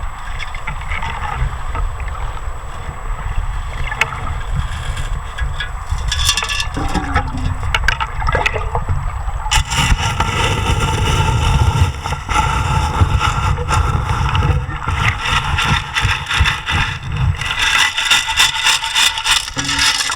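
River water sloshing and gurgling around a wading detectorist, with gravel scraping from a sand scoop digging the riverbed. It gets louder and busier about halfway through.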